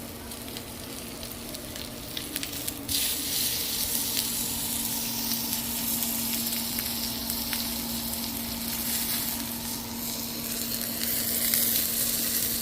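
Tomahawk steak edge searing in avocado oil on a griddle at about 600°, sizzling steadily; the sizzle jumps louder about three seconds in, with a steady low hum beneath.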